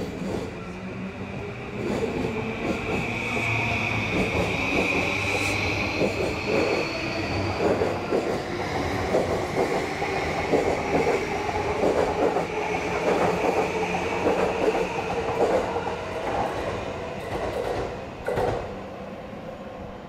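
JR East E235-series Yamanote Line electric train accelerating away from the platform: the traction motors' whine rises slowly in pitch, then the wheels clack rhythmically over the rail joints as the cars run past, with a sharp clack near the end as the sound falls away.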